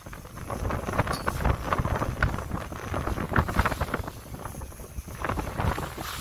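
Wind gusting across the microphone in uneven buffets, over the rushing noise of a fishing boat moving through choppy sea.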